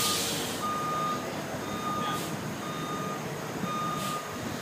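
Forklift backing up under a heavy load, its reversing alarm beeping about once a second over the running engine, with a few short hissing bursts.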